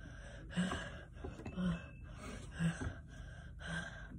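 A boy gasping and breathing hard through an open mouth, with about four sharp breaths roughly a second apart. It is a reaction to the burning heat of an extremely spicy gummy bear.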